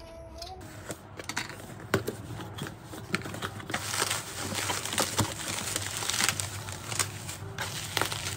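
Cardboard box flaps being opened and bubble wrap crinkling and rustling as hands pull wrapped items out, with many sharp little clicks and crackles; busiest about halfway through.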